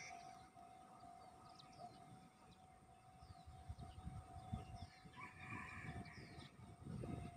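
Faint outdoor ambience: scattered short bird chirps and a steady faint high hum, with irregular gusts of wind buffeting the microphone that pick up in the second half.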